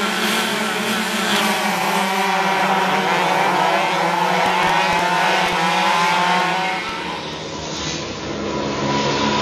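A pack of Rotax two-stroke kart engines revving up together as the field accelerates away from a green-flag race start, many engine notes rising at once. About seven seconds in, the sound changes abruptly to a steadier engine note from a single kart.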